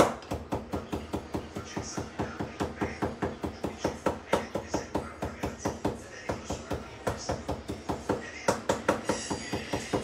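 Kitchen knife rapidly chopping fresh parsley on a wooden cutting board, an even run of sharp knocks about four to five a second.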